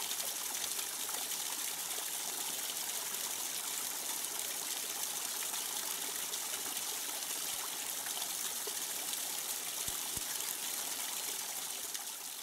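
Water from a paludarium's artificial-rock waterfall running down over the rock and splashing into the pool below: a steady trickling and splashing.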